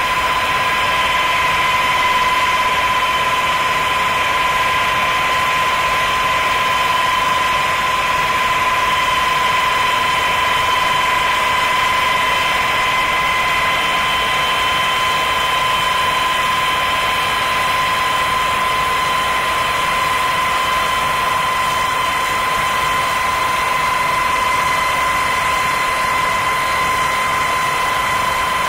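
Steady high-pitched turbine whine on one unchanging tone, over a constant rushing noise.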